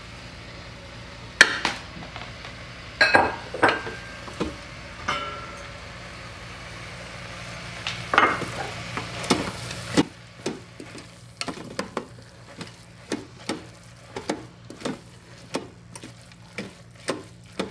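Wooden spoon stirring and tossing spaghetti squash strands in the stainless steel inner pot of an Instant Pot set to sauté, over a low sizzle. There are a few separate knocks in the first half, then quick scraping taps of the spoon against the pot, about two or three a second, in the second half.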